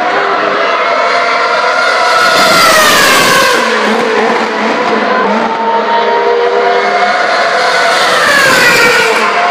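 Formula One cars' 2.4-litre V8 engines at high revs, passing at speed down the main straight. Several engine notes overlap, and the pitch drops sharply as a car goes by, about two and a half seconds in and again near the end.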